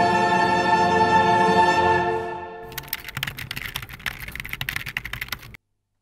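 Orchestral background music holding a sustained chord, which fades out about two and a half seconds in. Then comes about three seconds of rapid, irregular clicking and crackling, which cuts off abruptly shortly before the end into silence.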